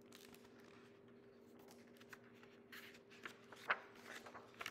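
Pages of a picture book being turned and smoothed flat by hand: soft paper rustling, with a few short crackles in the second half. A faint steady hum runs underneath.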